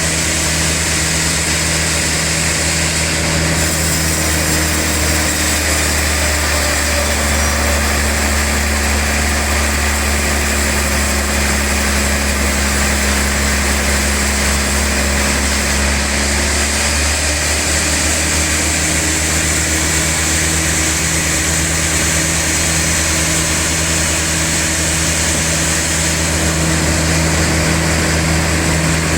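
Sawmill log saw running steadily with a loud motor hum; its tone shifts for a stretch from about 4 to 17 seconds in.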